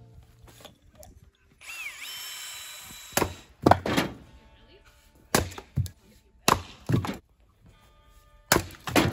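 Axe splitting firewood on a chopping block: a series of sharp wooden knocks starting about three seconds in, often coming in pairs about half a second apart. A short mechanical whir comes before the first strike.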